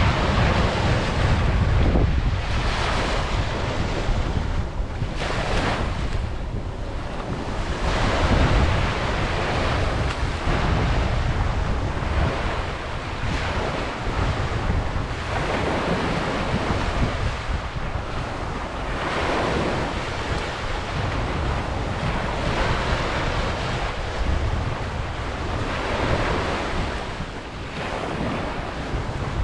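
Ocean waves breaking on a beach, the surf swelling and washing in every few seconds over a steady low rumble, with wind buffeting the microphone.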